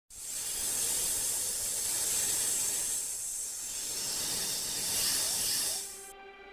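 A snake hiss sound effect for a computer-generated anaconda: one long hiss that swells twice and cuts off suddenly about six seconds in, where music begins.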